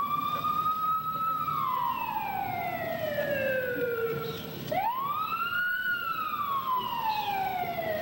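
Vehicle siren in a slow wail, its pitch rising and then gliding down over about three seconds before sweeping up again near the middle and falling once more.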